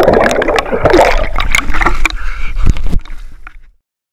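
Loud splashing and churning water in a struggle beside a kayak, with water thrashing and bubbling over a camera microphone that is dunked underwater. It fades out a little after three seconds in.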